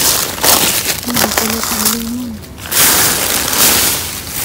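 Plastic produce bags and packaging crinkling and rustling loudly in irregular surges as hands rummage through and pull at bagged discarded vegetables.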